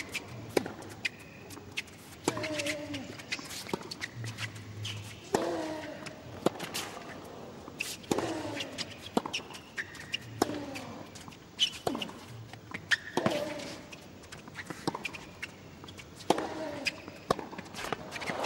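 Tennis rally on a hard court: the ball struck back and forth by racquets with sharp pops, and a player's short grunt with many of the shots, every couple of seconds.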